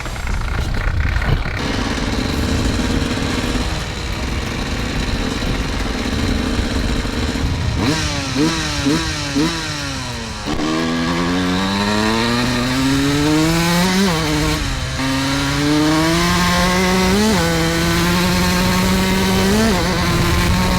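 Honda CR125 two-stroke single-cylinder dirt bike engine revving. It gives a few quick throttle blips, then its pitch climbs steadily as it accelerates, with more short blips of the throttle later on.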